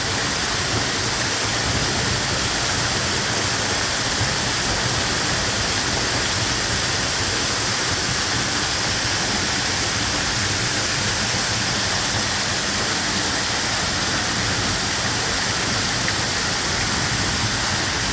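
Rain-swollen waterfall gushing in a steady, unbroken rush of water.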